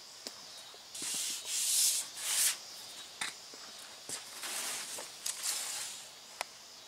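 Several short bursts of rubbing and scuffing, with a few light clicks in between.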